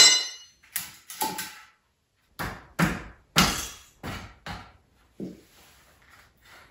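A string of sharp knocks and clatters of wood demolition debris being pulled up and handled on the floor. The first knock is the loudest, with a brief ringing; about eight follow over five seconds before it goes quiet.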